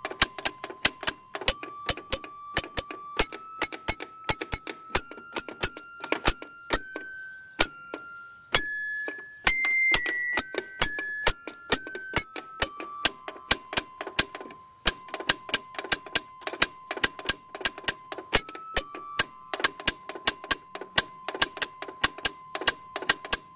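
Little Tikes toy piano being played: bell-like notes struck in quick succession, each starting with a sharp click. The simple tune climbs to higher, slower notes in the middle, then settles into one low note hammered rapidly over and over.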